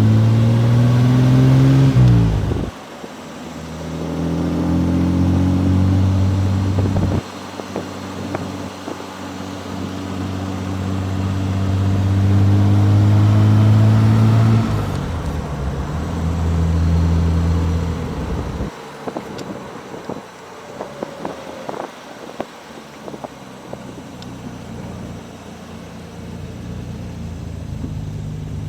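Austin-Healey 3000 Mk III's straight-six engine pulling under acceleration. Its pitch rises steadily and drops sharply at gear changes about two and a half and fourteen and a half seconds in. From about nineteen seconds in it eases off to a lower, quieter run with scattered clicks, then picks up again near the end.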